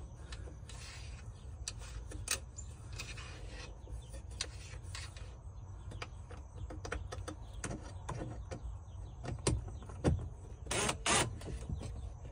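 Handling sounds of a cordless impact driver being positioned to drive screws into a camper door flange: scattered light clicks and taps over a low rumble, with two short louder rasps near the end.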